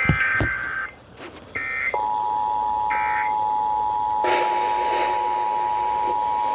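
Emergency Alert System broadcast tones over the radio: a few short bursts of the screechy digital data warble, then, about two seconds in, the steady two-tone EAS attention signal begins and holds. This attention signal marks the start of an alert, here a Required Monthly Test. A hiss of noise joins under it about four seconds in.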